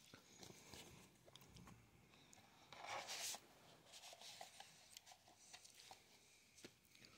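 Near silence broken by faint rustling and light ticks of sticker sheets and paper packaging being handled, with one louder rustle about three seconds in.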